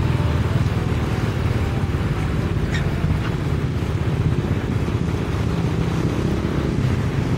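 Steady low rumble of road traffic, cars and motorbikes, passing on a bridge.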